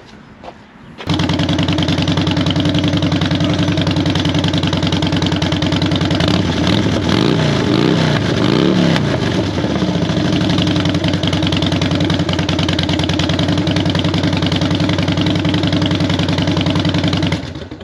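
Harley-Davidson Dyna's V-twin engine running steadily, with a brief wavering in pitch about halfway through. It cuts in suddenly about a second in and cuts off just before the end.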